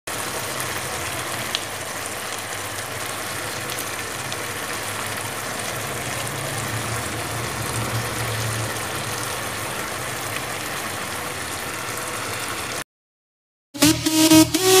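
Vegetables and sauce in a wok sizzling and bubbling steadily as fried chicken pieces are added. The sizzle cuts off suddenly about 13 seconds in, and after a brief gap loud electronic music with a beat starts near the end.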